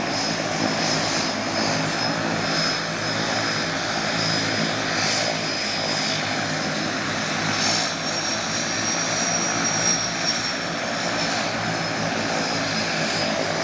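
Twin-engine floatplane's turboprop engines running at idle, a steady propeller drone with a thin high whine that rises slightly about eight seconds in.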